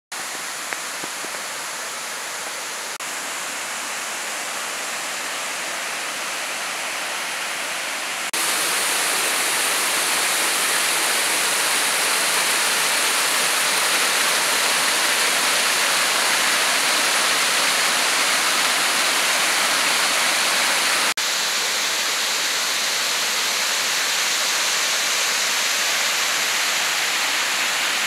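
Waterfall: steady rushing of falling water. It jumps louder about eight seconds in and drops back a little about twenty-one seconds in.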